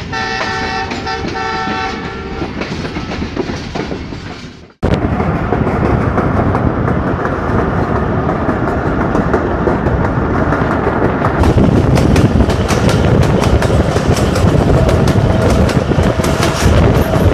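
A few short multi-tone horn-like blasts fade out, then after a sudden cut the loud, steady rumble of a moving passenger train heard from the side of a coach, with wheels running on the rails. From about the middle, rapid sharp clicks of the wheels over the track join in.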